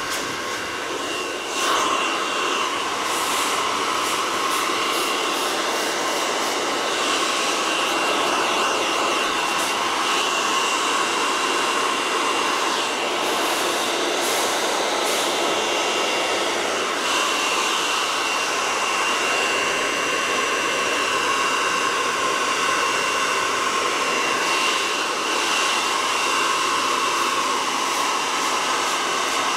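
Hand-held hair dryer blowing hair dry: a steady rush of air with a constant whine from its motor. It gets louder about two seconds in.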